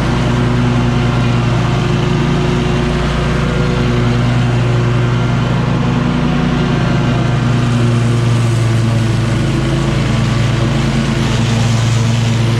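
Engine of a 2019 Scag V-Ride II stand-on commercial mower running steadily at a constant pitch while mowing.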